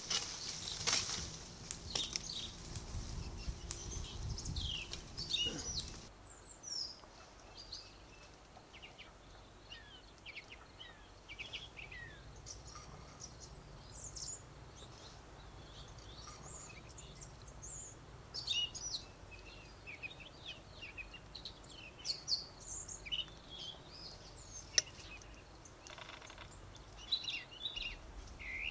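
Small birds chirping, many short calls scattered through the whole stretch over a faint outdoor background. For about the first six seconds, pomegranate-tree branches and leaves rustle and shake as fruit is picked.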